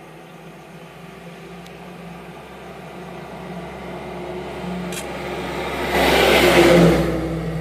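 A loaded goods truck approaching and passing close by, its engine and tyre noise growing steadily louder to a peak about six seconds in, then starting to fade.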